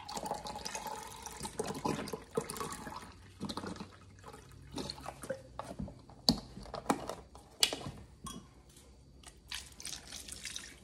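Chicken broth pouring from a carton into a glass measuring cup, with a couple of sharp knocks midway. Near the end the broth is poured from the measuring cup over dry pasta in a casserole dish.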